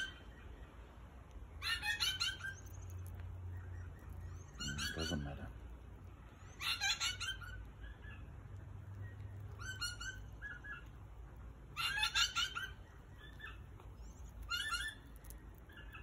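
Australian king parrot calling: about six short bouts of quick, high repeated notes, each bout a couple of seconds after the last.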